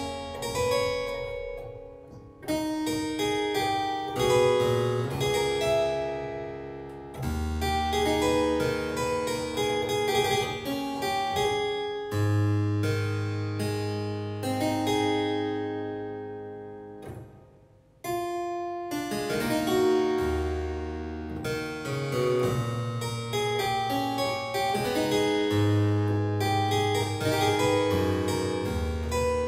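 Harpsichord playing music in chords over a bass line. About 18 seconds in, a phrase dies away almost to nothing before the next one begins.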